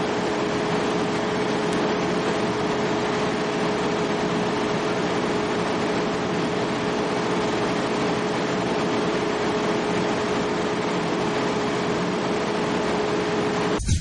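Engine-driven generator set running at a steady speed: a constant hum with one steady tone over a machine-room rush, the governor's stability having just been trimmed against fast hunting. It cuts off just before the end.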